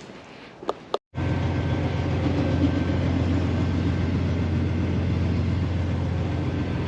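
Grain truck's diesel engine idling steadily while its compressor builds air pressure for the air brakes. It comes in about a second in, after a few faint clicks.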